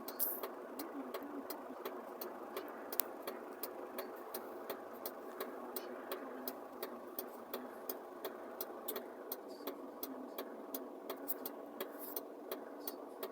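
Steady mechanical hum, with faint sharp ticks about three times a second.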